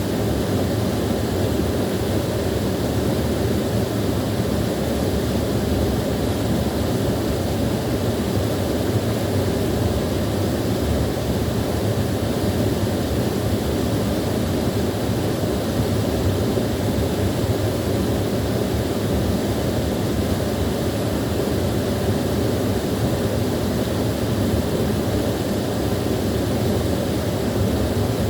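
Small waterfall pouring in a steady, unbroken rush, strongest in its low rumble.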